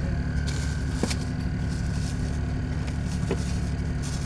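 A boat engine running steadily at one pitch, a constant motor hum. A few light clicks and rustles come from handling a fish over a plastic bag.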